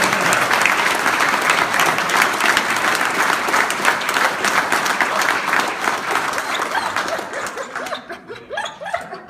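A group of people applauding, the clapping dying away about eight seconds in.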